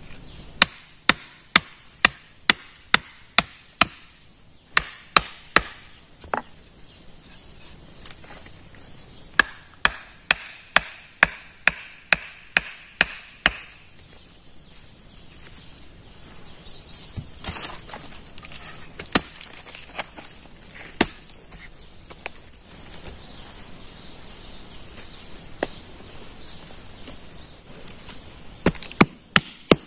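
Repeated chopping blows on wood, in runs of quick strikes about two a second, with pauses and a few single blows between the runs.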